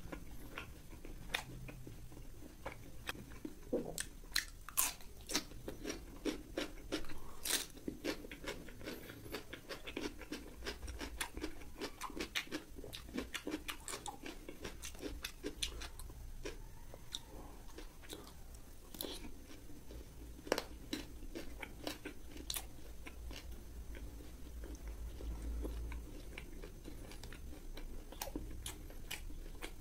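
A person chewing fried pork, with many sharp crunches that are thickest in the middle and one loud crunch about two-thirds of the way through.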